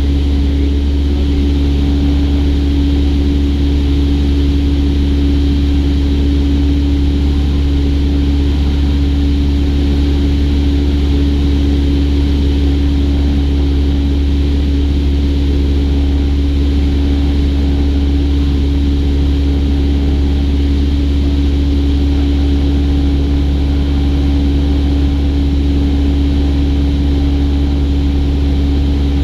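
Cessna 172's piston engine and propeller running at steady power, an unbroken drone with a strong low hum and a steady pitched tone that holds throughout.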